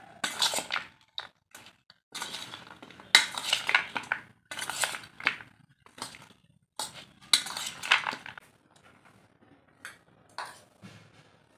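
Steel spoon scraping and clinking against a stainless steel bowl as it tosses a chunky mix of boiled potato, chickpeas and onion, in four bursts of stirring, fainter over the last few seconds.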